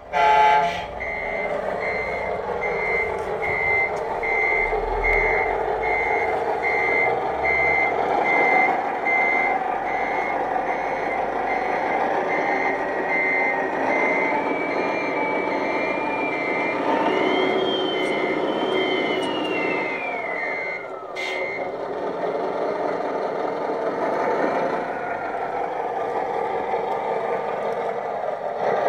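Scale RC truck noise: an electronic reversing beeper sounding at an even pace over a steady engine drone. Partway through the beeping stops and a whine rises, holds and then falls away, ended by a sharp click; the beeps come back near the end.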